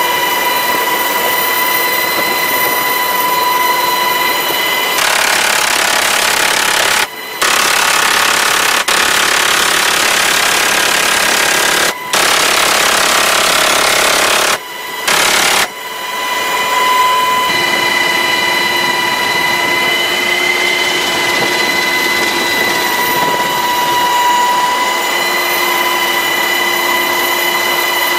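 Inside an HH-60 Pave Hawk helicopter's cabin, the helicopter's steady high whine; about five seconds in, a door-mounted minigun (six-barrel rotary machine gun) opens up in long, continuous buzzing bursts. The gun pauses briefly three times and stops about seventeen seconds in, leaving the helicopter whine again.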